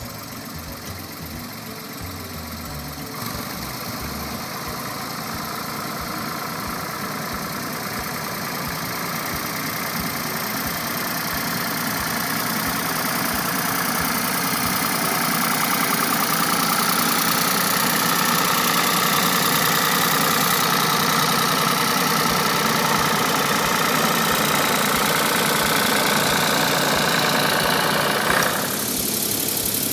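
A Ford farm tractor's engine running. It grows steadily louder over the first half as the tractor draws closer, then holds steady, and the sound changes abruptly near the end.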